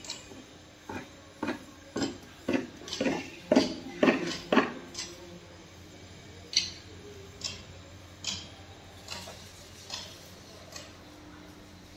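Repeated metallic clanks, about two a second, building to the loudest strikes around four seconds in, then slowing to scattered single clanks.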